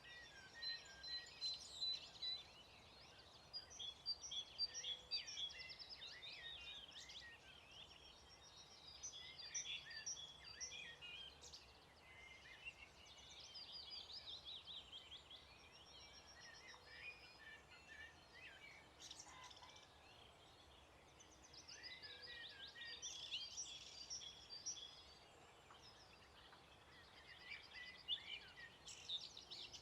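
Many small songbirds singing at once in a faint dawn chorus, with overlapping chirps, trills and quick repeated notes that swell and thin out in waves.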